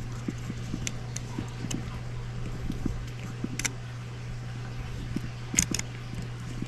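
Small metallic clicks and taps of a Winchester 131 .22 rifle's parts being handled while its ejector spring is worked into place, with two sharper clicks near the middle and later. A steady low hum sits under them.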